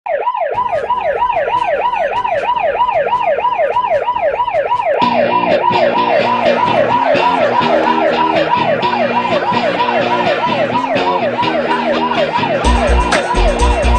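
Electronic dance-music intro built on a siren-like wail that sweeps up and down about three times a second. About five seconds in a bass line and a ticking beat join it, and a heavy kick drum comes in near the end.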